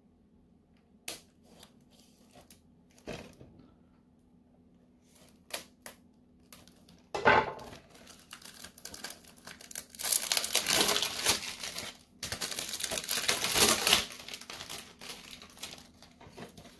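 Plastic shrink-wrap being torn off a Blu-ray box set and crumpled. A few light clicks and taps come first, then loud crinkling and tearing starting about seven seconds in, heaviest in two long spells near the middle and later part.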